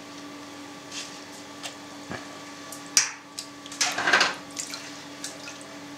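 Whey splashing and dripping lightly as a plastic jug is dipped into a pot of whey, with a sharp click about three seconds in, over a faint steady hum.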